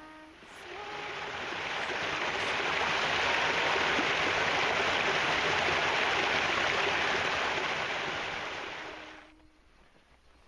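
Running water of a small brook rushing steadily. It swells up over the first couple of seconds and fades out about nine seconds in.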